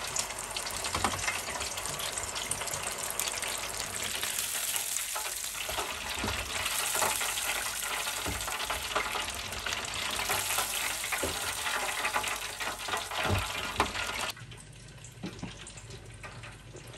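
Hot oil sizzling and bubbling in an electric deep fryer as fries and a floured hake fillet fry in its wire basket, with a few short knocks. The sizzle cuts off suddenly near the end, leaving a faint low hum.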